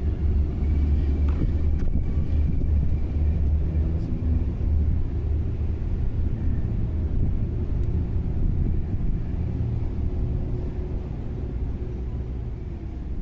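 Steady low rumble with a faint, even whine above it, typical of a 1/10 scale electric RC rock crawler's motor and gears running.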